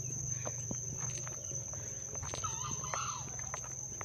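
A single fowl call, about a second long, a little past halfway through, over a steady high-pitched insect drone.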